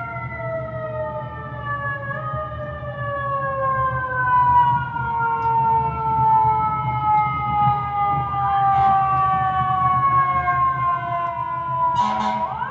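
Fire truck siren wailing with one long, slow fall in pitch over a low rumble. Near the end the sound cuts off and a new siren glide starts rising.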